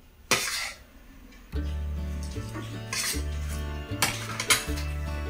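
A metal spoon and fork clink and scrape against a plate of biryani while eating, a few sharp clinks with the loudest near the start. Background music with a stepping bass line comes in about a second and a half in.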